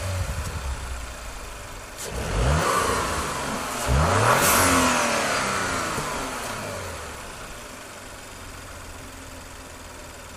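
2018 Audi RS4 Avant's 2.9 TFSI twin-turbo V6 revved several times while standing, the revs rising and falling in quick sweeps. The last and loudest rev comes about four seconds in, then the engine drops back and settles to a steady idle.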